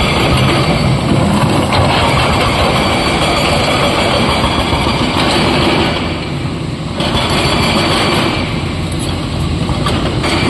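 SANY SY225 hydraulic excavator working: diesel engine running under load, with the steel bucket scraping and clattering over broken stone. The noise eases briefly twice in the second half.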